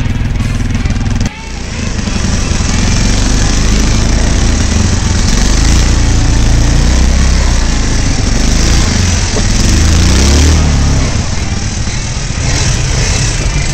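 Quad bike (ATV) engine running and revving, heard close up from the helmet camera under loud rough noise. The sound dips sharply for a moment about a second in, and the revs climb briefly near the end.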